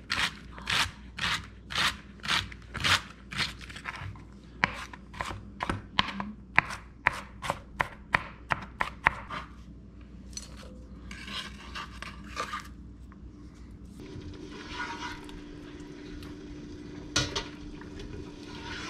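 Chef's knife chopping celery on a plastic cutting board, sharp even strokes about two a second that come faster before stopping about nine seconds in. Scraping follows for a couple of seconds, then a steady low hum.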